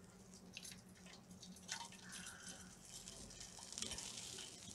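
Jaggery syrup poured from a pan through a steel tea strainer into a steel bowl: a faint trickle and drip, with a few light clicks in the first two seconds, the pour growing steadier and louder near the end.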